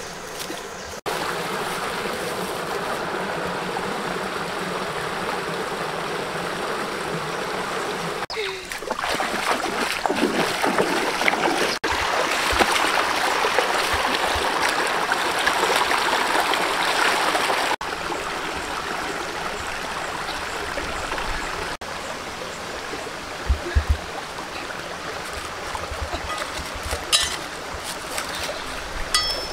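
Shallow rocky stream running: a steady rush of water that jumps in level at several cuts between clips. A few low thumps and clicks come near the end.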